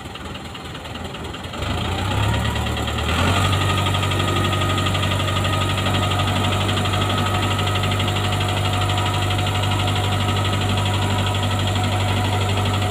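Large farm tractor's diesel engine running, throttled up in two steps about 1.5 and 3 seconds in, then holding a steady, loud pull as the tractor climbs a lorry's loading ramp.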